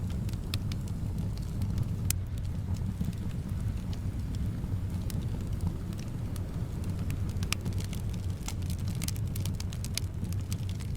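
Wood fire crackling with irregular sharp pops over a steady low rumble of wind. The pops come thicker near the end.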